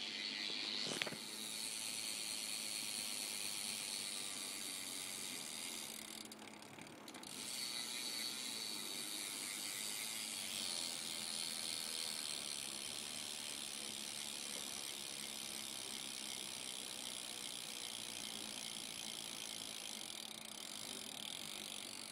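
Stock rear hub of a 2012 Fit BF2 BMX freewheeling, its pawls ratcheting in a fast, continuous buzz of clicks. The sound dips briefly about six seconds in, then picks up again.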